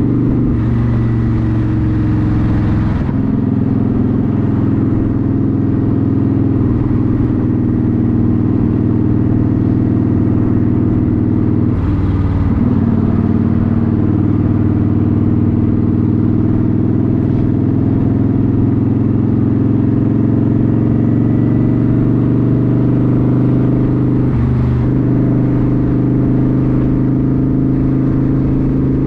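Motorcycle engine running steadily on the move. Its note briefly drops and climbs back about three times, near the start, in the middle and near the end.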